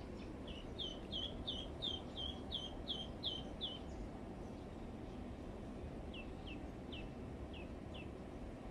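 A small bird calling: a quick run of about ten short, falling chirps, about three a second, then five more, more spaced out, in the second half, over a steady low background rumble.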